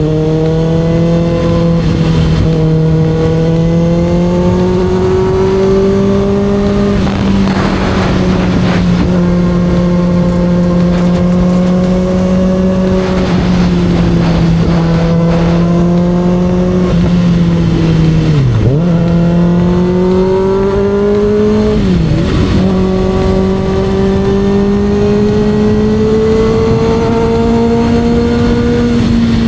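Sport motorcycle engine running steadily under way, its pitch climbing slowly as it pulls. Twice in the second half the revs drop sharply for a moment and pick up again.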